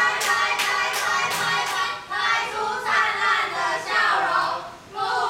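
A group of young voices sings a cheer in unison, clapping in time at about two and a half claps a second for the first two seconds. The singing breaks off briefly about two seconds in and again near the end.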